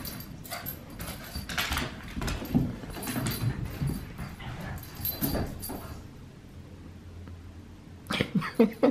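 Australian cattle dogs, a blue heeler puppy among them, vocalising in rough play: whines and yips. They go quieter for a couple of seconds, then a quick run of short sharp sounds comes near the end.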